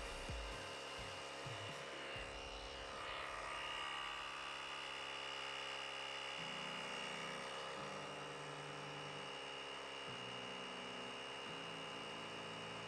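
Portable tyre-inflator air compressor built into an Auxito AJ01 jump starter, running steadily as it pumps up a car tyre, with a steady high whine over its drone.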